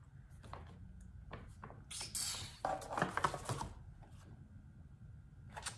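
Sheets of paper being handled: light rustling and a few soft taps, with a louder stretch of rustling and sliding about two to three and a half seconds in.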